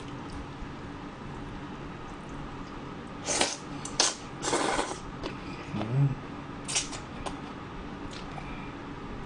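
Slurping cold yeolmu naengmyeon noodles and broth: a few loud slurps about three to five seconds in and another near seven seconds, with a short low hum around six seconds.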